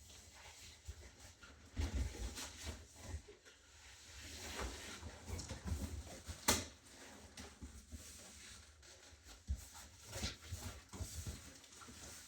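Irregular handling noises of unpacking a boxed scooter: rustling, scattered knocks and thumps, and one sharp click about six and a half seconds in.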